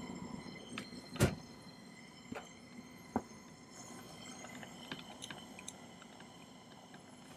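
A small jeweller's torch flame hissing softly during soldering, with several light metallic ticks and taps of tools on the soldering block and the silver pieces. The sharpest tap comes about a second in.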